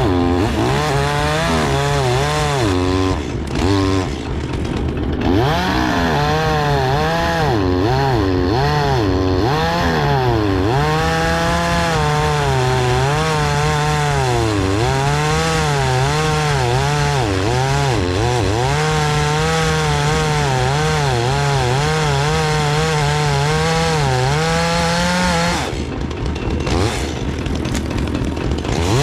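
Chainsaw cutting through wood, its engine note dipping as the chain bogs in the cut and climbing again as it frees. The engine drops back near the end.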